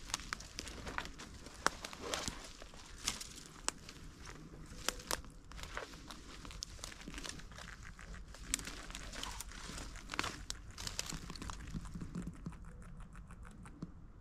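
Footsteps crunching through dry grass, reeds and sticks: irregular crackling and snapping, with a quicker run of light clicks near the end.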